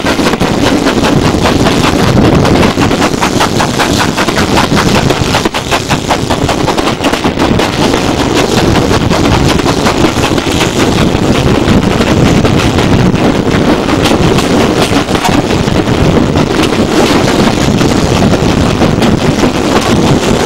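Steam train heard from a carriage window: the locomotive, GWR Hall-class 4-6-0 5972 Olton Hall, working with rapid, even exhaust beats over the rumble of the coaches, with wind buffeting the microphone.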